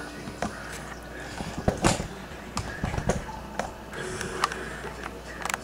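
Irregular sharp clicks and light knocks, about eight of them, the loudest about two seconds in, over a low steady hum.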